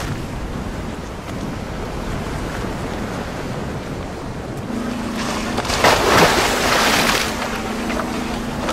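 Wind and sea noise on an open boat at sea, with a louder rush of water around six seconds in. A steady low hum starts about halfway through.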